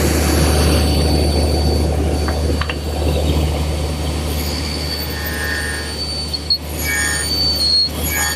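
Table saw running, its blade nibbling away the haunch of a walnut tenon in repeated crosscut passes. A steady motor hum and a high, even whine, with the cutting noise rising and falling as the wood is fed.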